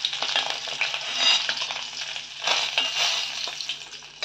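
Hot oil sizzling in a stainless steel kadai around whole fried duck eggs, while a steel spoon scrapes and clicks against the pan, lifting the eggs out.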